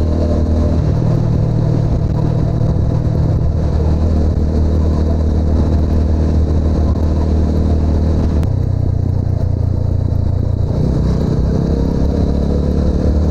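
TVS Apache RTR 200's single-cylinder engine and exhaust running steadily while riding. The engine note shifts in pitch about a second in, again past eight seconds, and near eleven seconds.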